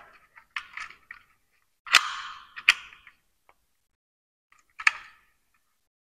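Sharp plastic clicks and short rustles from a smoke detector and its packaging being handled: a few separate clicks, the loudest about two seconds in, with quieter ones near the start and about five seconds in.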